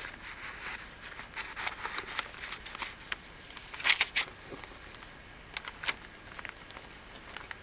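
Paper rustling and crackling as the stiff, layered pages of a handmade paper journal are handled and turned, with a sharper crackle about four seconds in.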